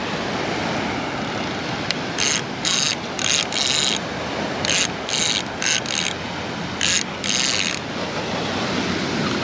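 A heavy fishing reel's ratchet and gears clicking in about ten short spurts, with steady surf underneath.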